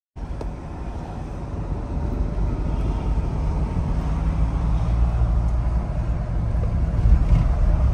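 Mahindra Thar driving: a low, steady engine and road rumble that slowly grows louder.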